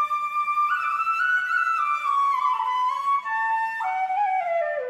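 Background music: a single melody line with smooth slides between notes, falling in pitch near the end.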